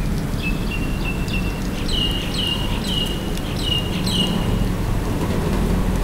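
Edible-nest swiftlets giving a run of about a dozen short, high chirps, around three a second. The chirps start about half a second in and stop about four and a half seconds in, over a steady low rumble.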